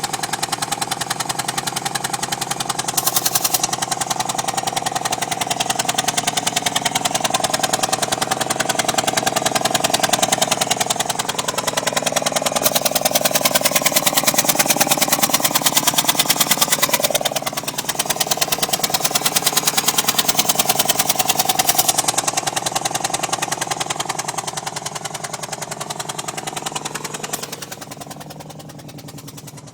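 Subaru WRX turbocharged flat-four engine running, with a rapid, even ticking over a whine that wanders in pitch: the strange engine sound the owner is showing. It fades away near the end.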